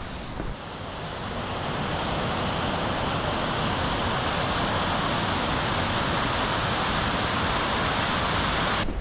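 Waterfall on a rocky mountain stream, a steady rush of water cascading over rocks. It swells over the first couple of seconds, holds even, and cuts off abruptly just before the end.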